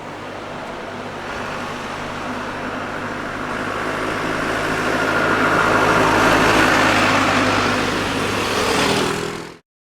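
Benelli Imperiale 400's single-cylinder engine and exhaust running, growing steadily louder over several seconds. The sound cuts off abruptly near the end.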